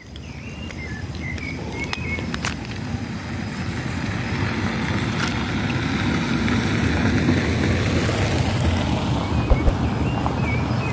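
A car driving up the dirt road past the walker, its engine and tyre noise swelling over several seconds and then staying loud. Birds chirp faintly in the first few seconds.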